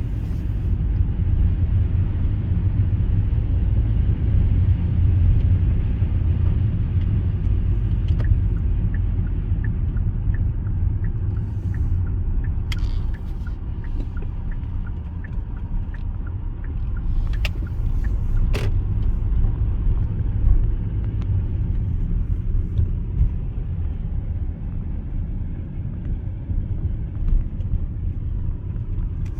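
A car driving through a snowstorm, heard as a steady low rumble of engine and tyre noise, with a few short clicks midway.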